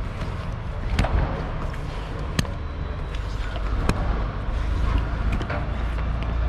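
Metal curtain-strap buckles on a curtainsider trailer being unlatched one after another, giving three sharp clacks about a second and a half apart over a steady low rumble.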